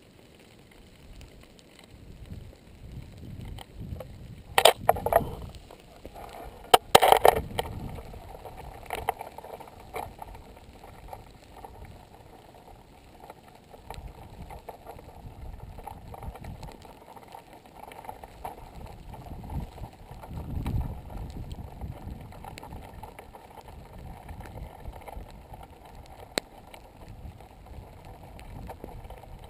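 Uneven low rumble of wind buffeting a GoPro's microphone, with a few sharp knocks and crackles about five and seven seconds in.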